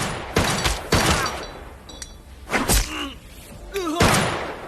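Fight-scene sound effects: a quick flurry of heavy blows in the first second, then two more hits, with a man's shouts and grunts before them.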